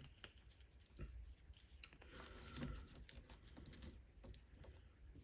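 Near silence with faint, scattered light clicks and soft handling noises, as small tools and fingers are worked against a tape deck's faceplate.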